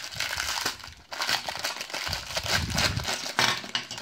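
Packaging crinkling and rustling as a small surprise toy is opened by hand, with a few low handling bumps.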